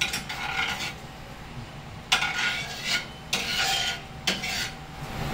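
A spatula scraping and stirring in a frying pan on the stove, in four separate strokes of under a second each with short pauses between.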